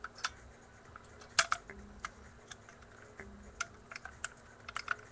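Irregular small clicks and taps of gun parts being handled as the upper receiver of a CYMA CM035A airsoft gun is taken off during disassembly. The sharpest click comes about a second and a half in, with a quick run of clicks near the end.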